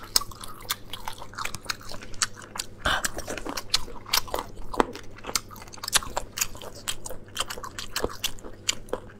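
Close-miked crunchy, wet chewing of boneless chicken feet in a sour-spicy sauce: a steady run of short sharp crunches and clicks, several a second.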